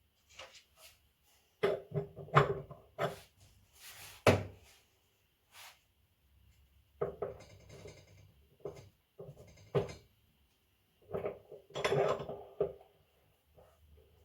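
Irregular metallic clinks and knocks, some with a short ring, from metal tools and a bearing puller being handled and worked against the washing machine tub while the drum bearings are pulled out.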